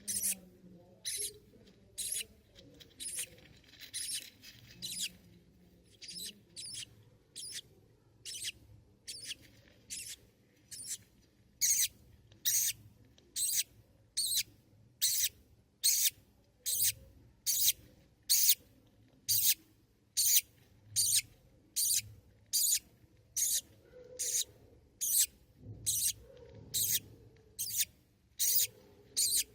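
Baby budgie chick cheeping: short high-pitched calls repeated evenly, about one and a half a second, getting louder about a third of the way in.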